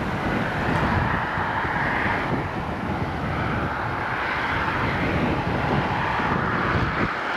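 Gusty wind buffeting the microphone, over the steady distant running of a passing steam train hauling its carriages.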